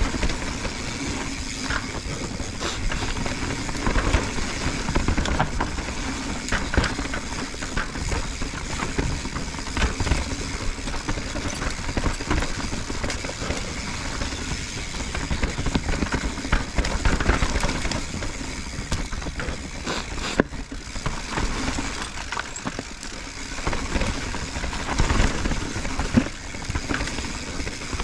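Mountain bike riding fast down a dirt trail: knobby tyres rolling over dirt, stones and dry leaves under a steady rushing noise, with frequent knocks and rattles from the bike jolting over bumps.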